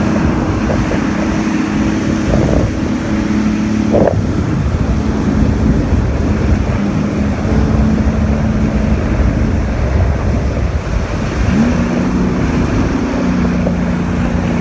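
Jet ski engine running at speed over a dense rush of wind on the microphone and water spray. The engine note steps up about three-quarters of the way through.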